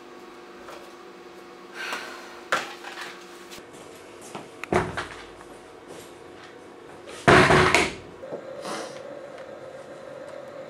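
Toilet cubicle door banging shut, the loudest sound, coming after a few lighter knocks and handling noises, over a faint steady hum.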